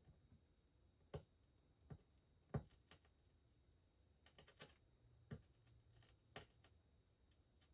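Scattered light clicks and taps of small tools and parts being handled during soldering work, the loudest about two and a half seconds in, with a quick cluster of them near the middle.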